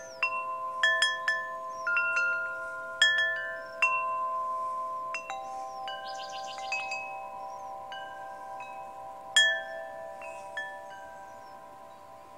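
Large metal tube wind chimes struck by the breeze, each strike ringing on in long sustained tones. Strikes come in quick clusters for the first few seconds, then more sparsely, and the ringing slowly fades toward the end.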